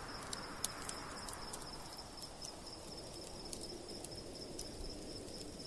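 Night ambience of crickets chirring steadily over a low hiss, with a few faint crackles from a campfire now and then.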